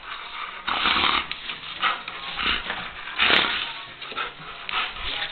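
German shepherd making short, noisy bursts of sound while it tugs at a toy in a person's hand; the loudest burst comes a little after three seconds in.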